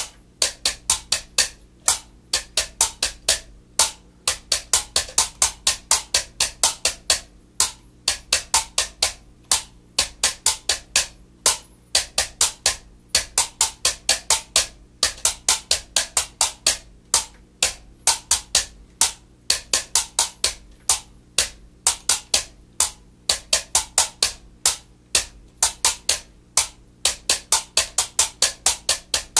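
A pair of tuned bamboo percussion tubes, each with a low and a high note, struck against the knees in a quick, steady rhythm of hollow knocks, about three to four a second, in repeating phrases with short breaks.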